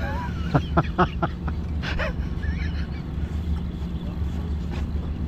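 Boat engine running with a steady low hum, and a few short knocks in the first second or so.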